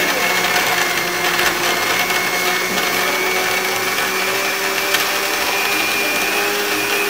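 Small countertop electric blender running steadily at full speed with its motor humming, blending an avocado shake.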